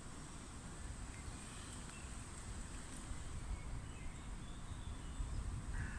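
Woodland outdoor ambience: a low, uneven wind rumble on the microphone with a few faint bird calls, and a louder call starting right at the end.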